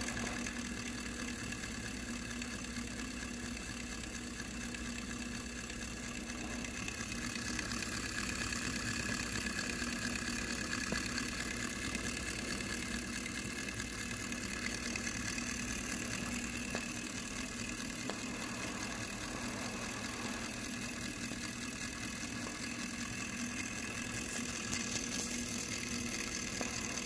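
A 16-cylinder butane-fired Stirling engine running steadily with its propeller spinning, a fast, even mechanical whir that picks up a little over the first several seconds.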